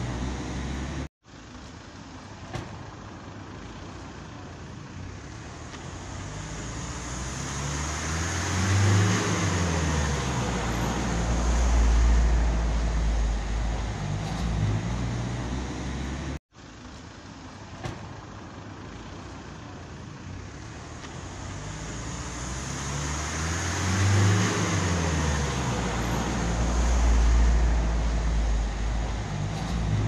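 Street traffic: a motor vehicle's engine grows louder and passes close by, its pitch dropping as it goes, followed by a low rumble. The same passage plays twice, with a brief cut in the sound before each pass.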